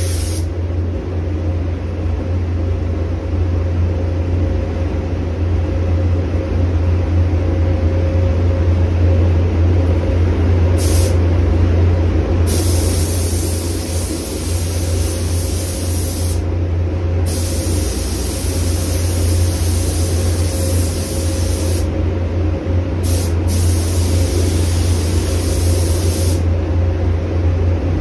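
A SATAjet 4000 RP spray gun hisses in repeated trigger pulls of a few seconds each as clear coat is sprayed, with short breaks between passes. Under it runs the steady low hum of the paint booth's air handling.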